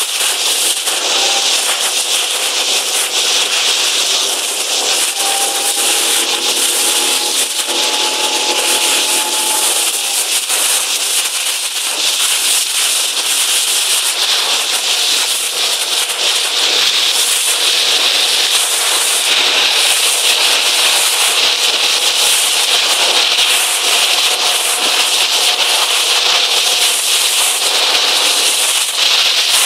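Loud, steady rush of wind and water around an RS800 sailing dinghy under way, full of constant fine crackling, with a faint hum that rises slightly between about five and nine seconds in.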